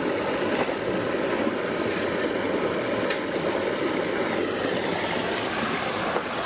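A creek's flowing water, a steady, unbroken rush.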